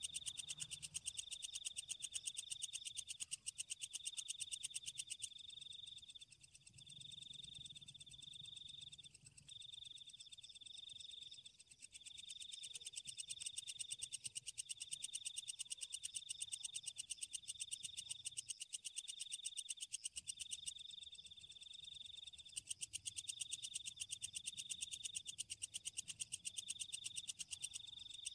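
Night-time chorus of frogs and insects: short high trills repeating about once a second over a fast, steady pulsing buzz.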